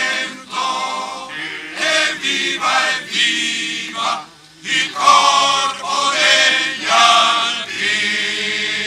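Alpini choir singing a cappella, the voices moving in sung phrases with a short breath-pause about four seconds in. It closes on a long held final chord near the end.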